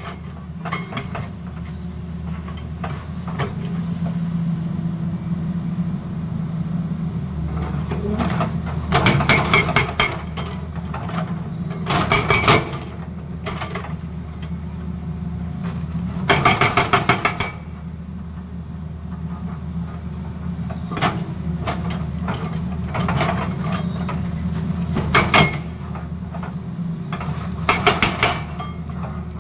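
Tata Hitachi excavator's diesel engine running steadily while its hydraulic rock breaker hammers against rock in several short bursts of rapid blows.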